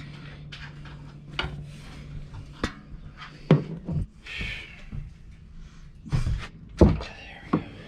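Scattered clicks and knocks of tools and parts being handled during a motorcycle oil change, with a short hiss near the middle, over a low steady hum that fades out about three seconds in.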